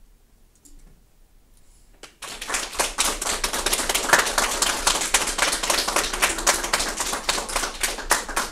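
A small group clapping, starting suddenly about two seconds in and going on steadily: dense, irregular claps.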